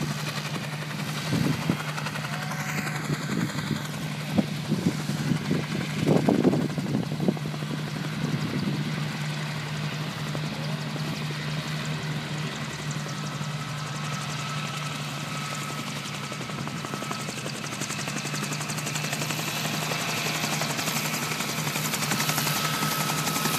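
Goodyear blimp's propeller engines droning steadily, growing louder near the end as the airship comes closer, with a higher steady whine joining about halfway. Irregular low thumps in the first several seconds.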